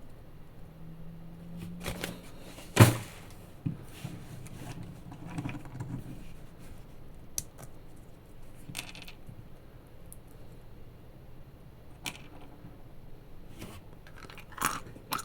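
Pistachios being handled and opened: scattered sharp clicks and short crackles of shells and packaging, with one louder click about three seconds in.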